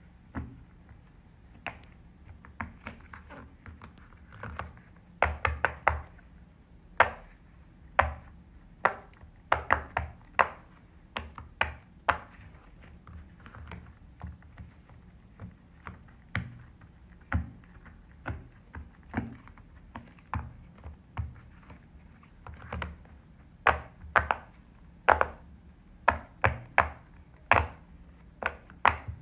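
Silicone pop-it fidget toy being pressed bubble by bubble: a string of sharp pops at uneven spacing, some in quick clusters.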